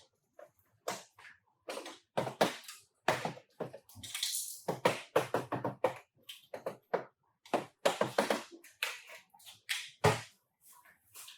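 Irregular knocks and taps, one after another, with a short hiss about four seconds in.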